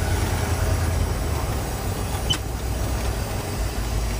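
1979 Ford F150's fuel-injected 460 big-block V8 running low and steady as the truck pulls over, heard from inside the cab, with a single sharp click about two seconds in.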